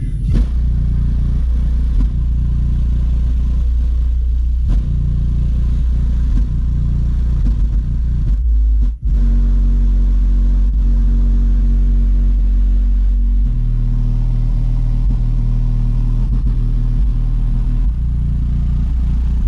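Sundown Audio X15 15-inch subwoofer playing a bass-heavy song very loud. Long deep bass notes change pitch every second or two, and the bass cuts out for an instant about nine seconds in.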